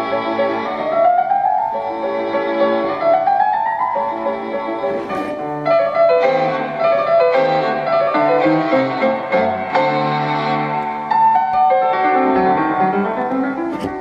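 Instrumental music, with piano and a melody line that slides up in pitch a few times, played back from a cassette on a Sony TCM-450DV Cassette-Corder and taken from its earphone output. The playback has little treble.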